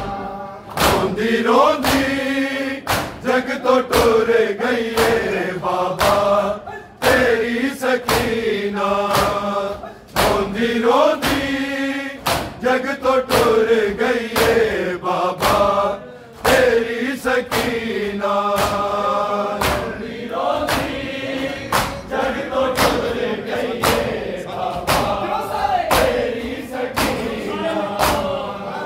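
A group of men chanting a Punjabi noha (Shia lament) in unison, with hands striking chests in matam at a steady, regular beat under the chant.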